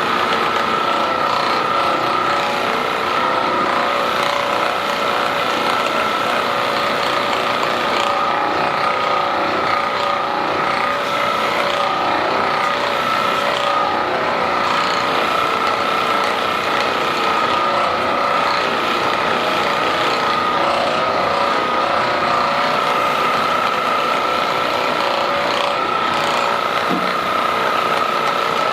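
A small electric motor running steadily, with a constant whine held at one pitch.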